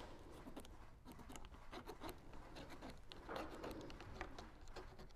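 Faint scratching and light ticks of a space-pen cartridge drawing short strokes through the slots of a clear plastic diamond-pattern stencil onto upholstery material.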